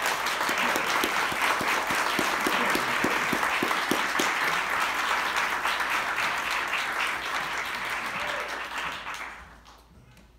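Audience applauding: many hands clapping steadily, dying away about nine seconds in.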